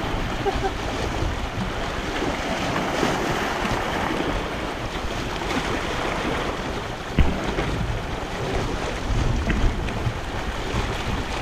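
Small waves washing and splashing over the rocks of a breakwall at the waterline, with wind rumbling on the microphone. A single short knock about seven seconds in.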